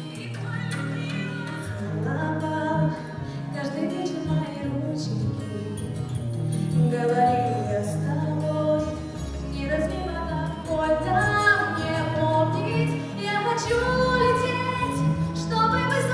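A woman singing a slow song into a microphone over instrumental backing music with steady low bass notes.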